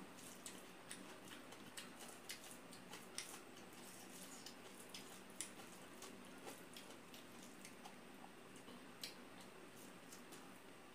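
Faint, wet squishes and scattered small clicks of rice and curry being squeezed and mixed by hand on a stainless steel plate.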